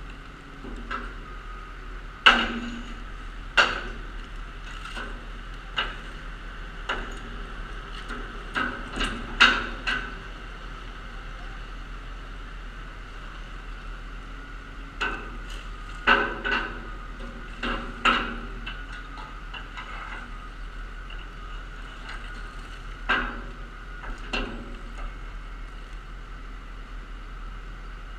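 Irregular sharp knocks and clanks, some ringing, as a long-handled tool strikes and scrapes the steel body of a garbage truck to clear out leftover recyclables. The knocks come in clusters with lulls between, over a steady low hum.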